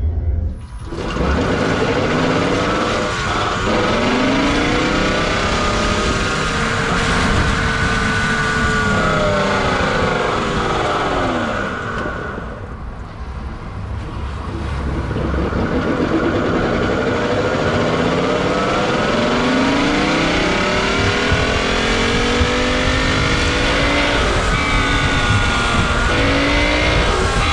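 Tesla Model S 85's large rear drive unit running under load, a loud low and high-pitched rattling noise that sounds like a V8, with several whining tones sweeping up and down together as speed changes and easing briefly about twelve seconds in. The noise comes from damaged ball bearings: the rotor shaft bearing, washed out by coolant past its seal, and the bearing on the first gear.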